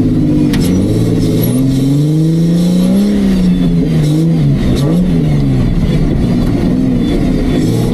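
Off-road Jeep's engine revving hard, its pitch climbing for about three seconds and then falling and rising again as the throttle changes, with a few sharp knocks over it.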